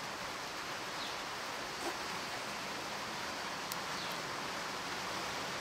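Steady background hiss with a couple of faint light clicks.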